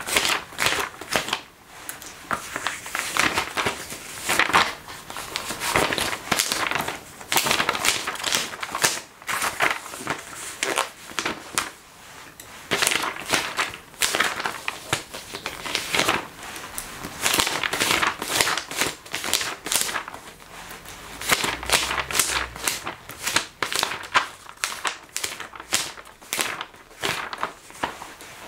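Magazine pages being turned and rustled in a steady run of irregular crackles, mixed with the rub and creak of leather clothing.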